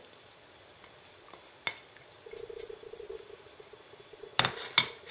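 Clinks of kitchen utensils and dishes against a glass mixing bowl: one sharp click about a second and a half in, then a quick run of sharp clinks near the end.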